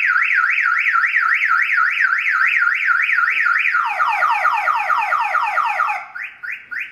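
Compustar car-alarm siren sounding at full volume, set off by the shock sensor's second stage. It repeats rising sweeps about three a second, switches to falling sweeps about four seconds in, then cuts off about six seconds in, followed by a few short chirps.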